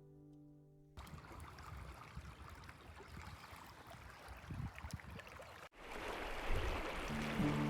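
River water rushing steadily, with a brief gap about three-quarters of the way through and louder after it. Music fades out at the start and comes back in near the end.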